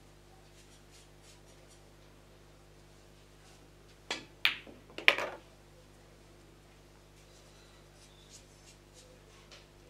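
Pool cue striking the cue ball with a sharp click about four seconds in, followed within the next second by three more sharp clacks of the ball in play, over a low steady room hum.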